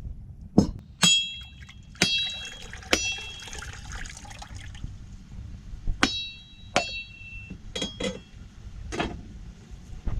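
Machete blade striking a husked coconut shell, about nine sharp whacks at an irregular pace, each with a short metallic ring, as the nut is cracked open around its middle.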